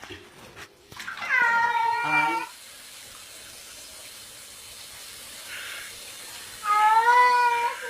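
Domestic cat giving two long, drawn-out meows about five seconds apart.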